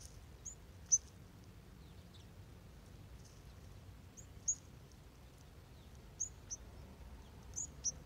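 Short, high chip calls from a mixed flock of dark-eyed juncos, white-crowned sparrows and Cassin's finches, about eight scattered notes, loudest about a second in, about halfway through, and a pair near the end. Under them runs a faint, steady low background hum.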